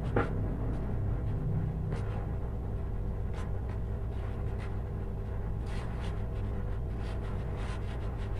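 Faint clicks and scratchy scraping of combination pliers gripping and twisting copper wire ends into a joint, over a steady low background hum.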